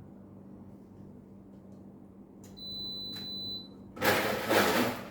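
A single electronic beep, a steady high tone lasting about a second, with a click partway through. About a second later comes a loud burst of clattering handling noise.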